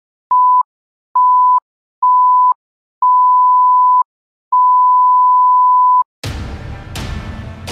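An electronic beep tone sounds five times, each beep longer than the last, the final one about a second and a half. About six seconds in, music starts.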